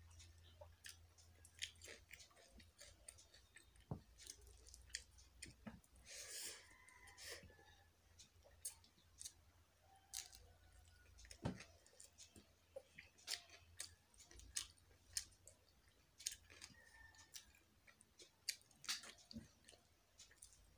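Faint, close-up chewing and wet mouth clicks from a person eating rice and curry by hand, with irregular small clicks and soft squishes of fingers mixing rice on a plate.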